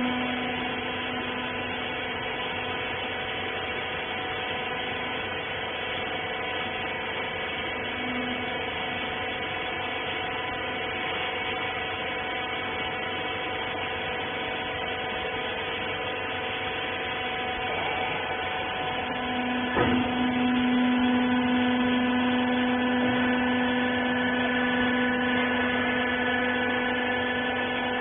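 Hydraulic used-clothes baler's electric motor and pump running with a steady hum. About twenty seconds in there is a click, and a louder, lower hum joins and holds.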